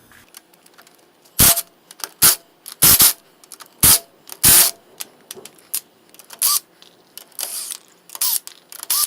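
Impact wrench loosening wheel lug nuts: five short, loud bursts of hammering, then several quieter, shorter bursts near the end.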